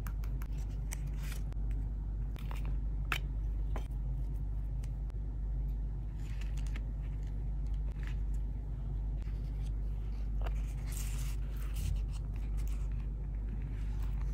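Paper pages and tucked-in paper pieces of a small handmade scrapbook being handled and turned: scattered soft rustles, crinkles and light taps, over a steady low hum.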